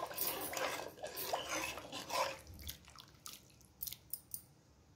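A spoon stirring thin rasam in a pan as salt is stirred in: the liquid sloshes and swirls and the spoon scrapes the pan. After about two seconds it eases off to a few light clicks.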